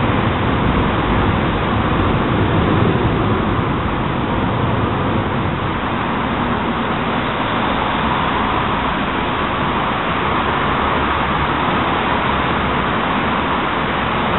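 Steady rumble and hiss of road traffic, with no single event standing out.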